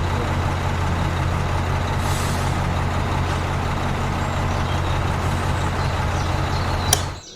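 A motor or engine running steadily with a low hum and a rushing noise, cutting off suddenly about seven seconds in.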